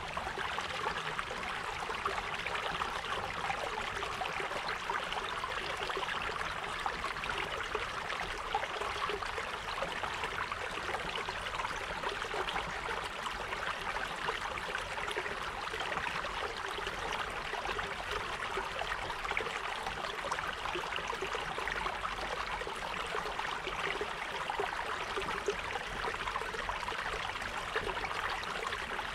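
Running water with a steady, even rush and no break.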